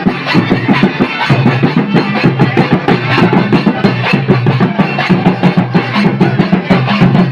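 Music with a fast, steady drum and percussion beat over a low bass line.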